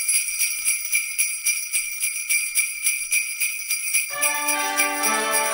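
Jingle bells shaken in a steady rhythm; about four seconds in, Christmas music with held instrumental notes joins under them.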